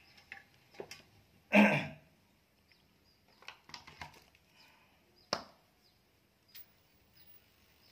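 A loud, brief knock or thud about a second and a half in, then scattered light clicks and taps, with one sharp click a little after five seconds in.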